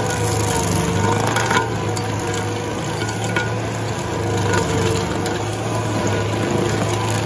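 Rayco RG80 stump grinder running steadily under load, its New River Revolution cutter wheel, on the dull side, grinding into the stump. A constant engine drone with a crackling hiss of chips and grit being thrown.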